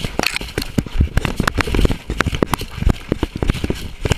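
Leaf litter and brush crackling and rustling under a running coonhound, heard close through the dog's collar camera, with quick irregular snaps and dull thumps of the camera jostling.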